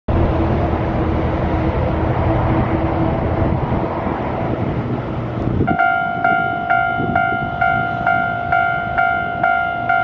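A loud low rumble fills the first half and stops abruptly, when a Japanese level-crossing warning bell starts: an electronic ding repeating a little over twice a second. The bell warns that a double-trailer dump truck is approaching on the haul road.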